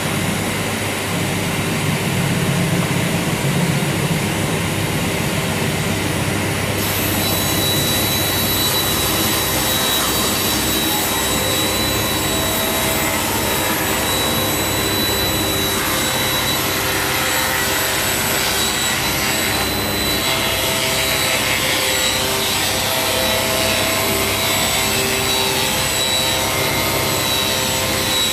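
Wadkin table saw running and rip-cutting a long solid oak board, a steady loud machine noise with a dust extractor drawing through the blade-guard hose. A higher whine joins about seven seconds in.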